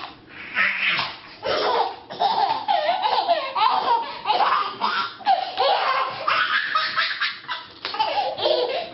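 A toddler laughing hard, high-pitched giggles coming in quick bursts one after another.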